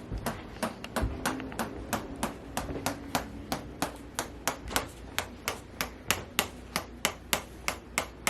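Rapid, evenly spaced sharp clicks, about three a second, typical of a chiropractic adjusting instrument firing over and over.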